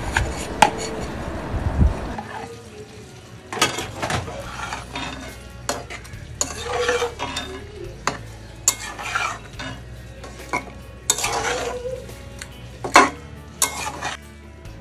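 A spatula stirring and scraping through Malabar spinach and fried hilsa fish heads in a pan, in separate strokes every second or two with a few light clinks against the pan. A sizzling hiss fills the first two seconds.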